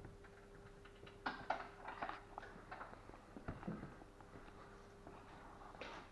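Scattered light knocks, clicks and rustles of handling work over a faint steady hum, busiest between about one and two seconds in.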